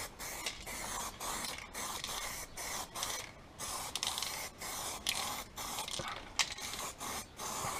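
Aerosol can of U-Pol acid etch primer spraying onto bare steel in short hissing bursts, about two a second, with brief pauses between.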